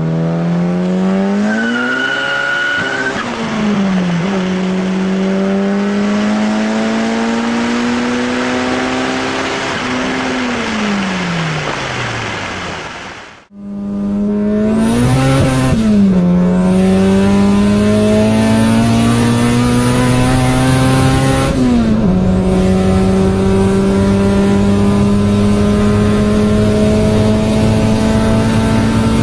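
A car engine accelerating hard through the gears. Its pitch climbs steadily in each gear and drops at each shift, with a brief high whistle about two seconds in. Around ten seconds in the engine winds down, then it cuts to another run of the same kind, climbing through several more gears.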